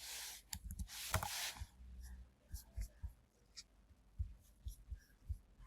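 Computer keyboard typing and mouse clicks: a quick run of keystrokes over the first second or two, then scattered single soft clicks.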